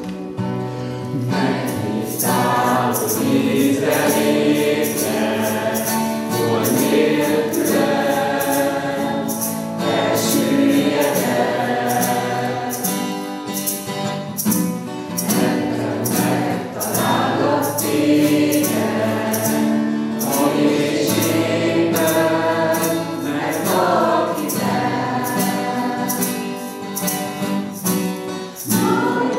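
Church congregation singing a worship song together, with a steady beat running under the voices.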